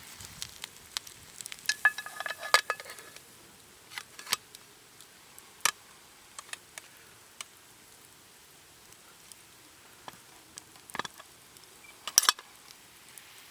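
Scattered light clicks and knocks of small hard objects being handled, with a brief ringing clink about two seconds in and a quick double click near the end, over a faint hiss.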